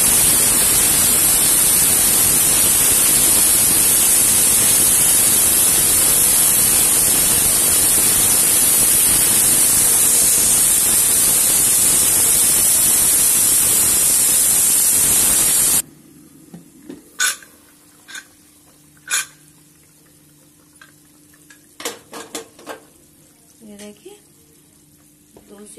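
Pressure cooker releasing its steam in a loud, steady hiss for about sixteen seconds after coming to two whistles, so it can be opened straight away; the hiss stops abruptly, followed by a few light clinks and knocks as the lid is worked open.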